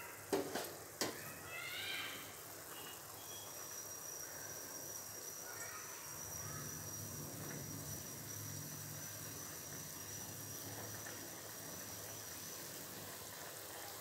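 Water with chopped vegetables boiling in an aluminium kadai on a gas stove: a faint steady bubbling. Near the start there are two sharp metal knocks as the slotted ladle is set down, followed by a few faint bird chirps.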